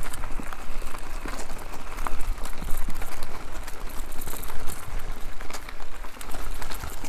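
Mountain bike ridden along a rough trail: tyres rumbling over the ground and the bike rattling with many small clicks and knocks, over a steady low wind rumble on the action camera's microphone.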